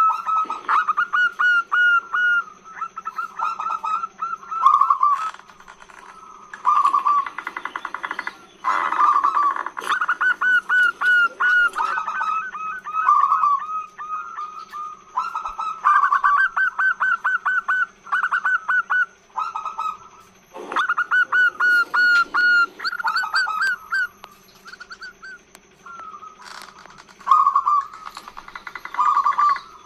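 Female zebra dove (perkutut) calling: quick runs of short staccato cooing notes, in phrases of a second or two with brief pauses between them.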